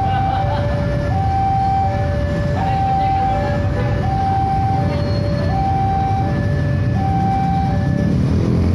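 Railway level-crossing warning alarm sounding a repeating two-tone high-low chime, one pair about every second and a half, over the steady rumble of idling motorcycles and cars; the chime stops near the end as the barrier begins to lift.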